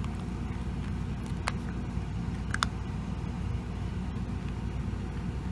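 Steady low rumble, with two brief sharp crunches about a second apart near the middle as a puppy chews dry kibble from a paper bowl.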